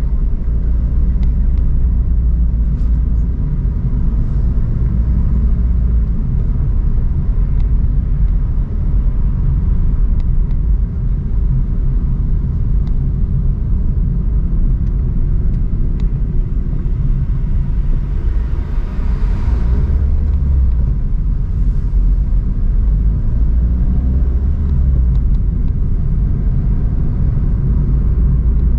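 Steady low rumble of a car driving, with a brief hiss swelling and fading about 19 seconds in.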